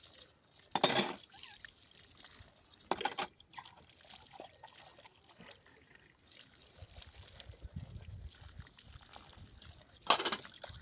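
Water splashing in three short bursts: about a second in, about three seconds in, and near the end, with a faint low rumble in between.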